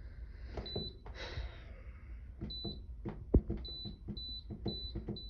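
Dehumidifier control panel giving short high beeps as its buttons are pressed, with small clicks; the beeps come about twice a second in the second half. One sharp knock about three seconds in.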